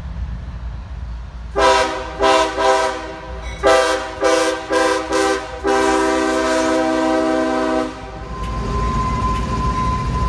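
CSX diesel locomotive's air horn sounding a chord in short blasts, three and then four, followed by one long blast of about two seconds, over the locomotive's low rumble. After the horn stops, a thin steady whine sets in over the rumble.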